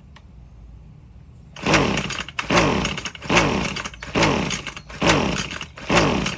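Husqvarna weed eater's recoil starter pulled five times in quick succession, starting about a second and a half in. Each pull spins the engine with a whirr that falls in pitch, and the engine never catches: it won't start.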